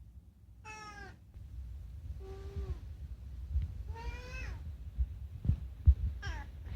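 A domestic cat meowing four times, short calls about a second and a half apart, each falling in pitch at the end. There are a couple of low thumps just before the last meow.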